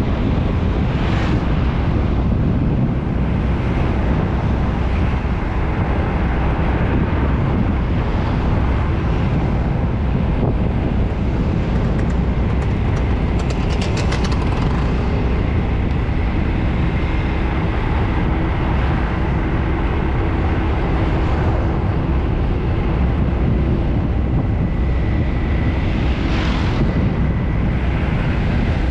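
Steady road traffic: engines and tyres of passing vehicles, with a constant low rumble. A quick run of sharp clicks sounds about halfway through.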